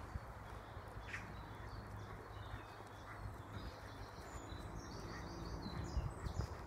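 Woodland songbirds singing faintly, with a run of rapid, high repeated notes about two-thirds of the way in. Low footstep thuds on the path come in near the end.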